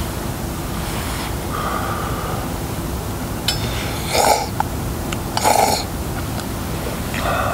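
A person slurping hot food and drink, noodles and then sips from a steel camping mug: a few short slurps, the loudest two about four and five and a half seconds in, over a steady low background rumble.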